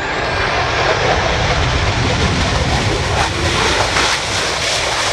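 Panavia Tornado's twin Turbo-Union RB199 turbofans running loud during the landing roll-out, with thrust reverse engaged to slow the jet. A steady rushing jet noise with a deep rumble underneath.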